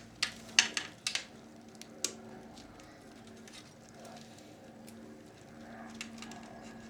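Small plastic clicks and snaps as a cable tie clip inside a video recorder is worked loose by hand, several in the first second and one more about two seconds in, followed by quieter handling over a faint steady hum.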